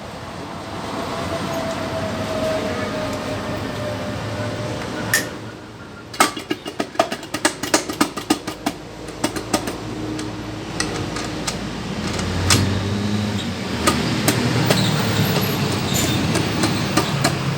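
Metal hand tools clinking and tapping against motorcycle engine parts. A dense run of quick sharp clicks comes about six seconds in, then scattered knocks over a steady background hum.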